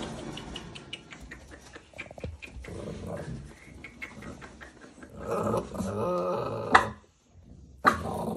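Two-month-old American Bully puppies growling, with clicking and rustling in wood shavings. The growling is loudest from about five seconds in and ends with a sharp sound just before seven seconds; after a short pause, another loud burst comes near the end.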